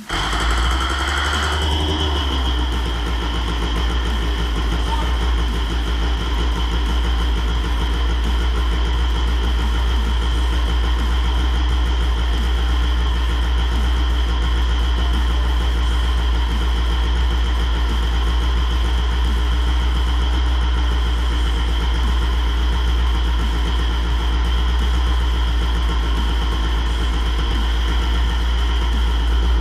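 Single-cylinder two-stroke engine of a 1996 Kawasaki KX250 motocross bike, cutting in suddenly with a brief change in pitch in the first couple of seconds, then running steadily at an even idle.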